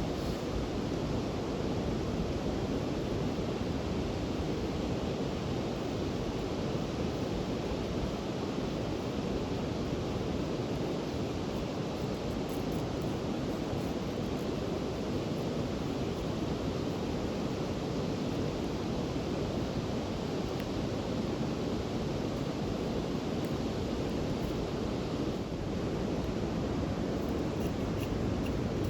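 Steady low rushing noise outdoors, even throughout, with a few faint high ticks.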